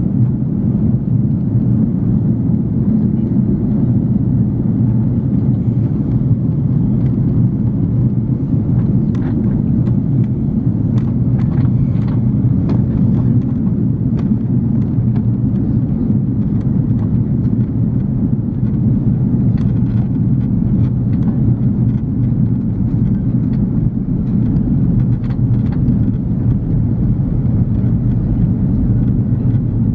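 Steady low rumble inside the cabin of an Airbus A340-300 airliner, engine and airflow noise. Faint short clicks and rattles come through now and then, mostly in the middle and again later on.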